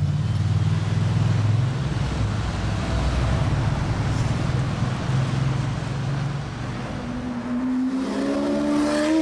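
Mercedes-Benz SLR McLaren's supercharged V8 running with a low rumble as it drives past. About seven seconds in, a Lamborghini Aventador's V12 accelerates away, its pitch rising steadily.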